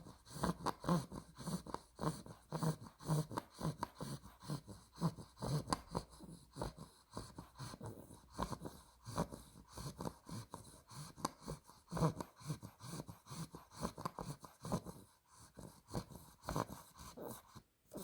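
Two-month-old Olde English Bulldog puppy snoring in her sleep: a fast, even run of short snoring breaths, about two or three a second, that stops suddenly near the end.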